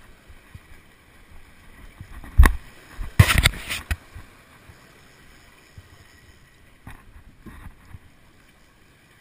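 Surf washing and breaking against jetty rocks, with one sharp thump about two and a half seconds in and a quick run of loud knocks about a second later.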